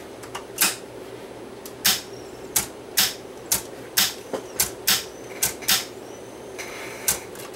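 Technics RS-M45 cassette deck's tape transport clicking and clacking as a cassette is loaded and the transport buttons are pressed: about a dozen sharp, irregular clicks over a steady low hum.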